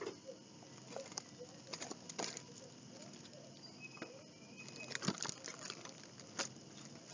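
A delivery package being handled and opened: irregular crinkling, rustling and clicking, with the densest burst about five seconds in.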